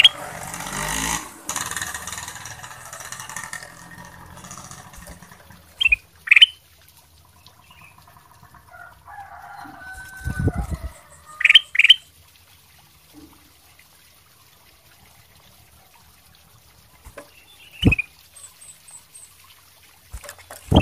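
Ruby-throated bulbul (kutilang emas) giving short, sharp, rising call notes several seconds apart, some in quick pairs. A rustling noise fills the first few seconds, and there is a low thud about ten seconds in.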